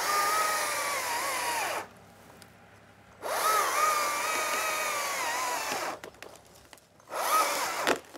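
Stihl battery chainsaw cutting into a thick oak limb. Its electric whine dips in pitch under load and cuts out twice as the saw stalls in the big wood, then gives a short burst near the end.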